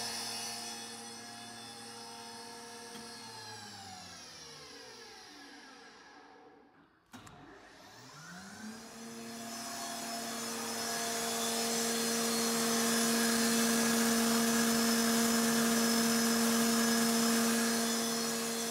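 Weinig Unimat 1000 moulder's cutter spindles winding down in pitch to a stop over about seven seconds, then starting up again, rising in pitch and settling into a steady whine at full speed.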